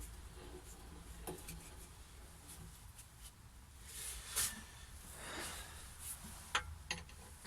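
Scattered handling noises at the lathe: a few sharp clicks and knocks and brief scraping or rubbing, as an off-centre maple blank is fitted to the lathe's cast-iron faceplate, over a faint low hum.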